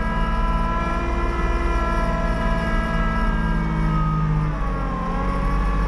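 Kubota LX2610 compact tractor's three-cylinder diesel engine running steadily under way. About three-quarters of the way through, its pitch sags a little and stays slightly lower, as the engine takes on load.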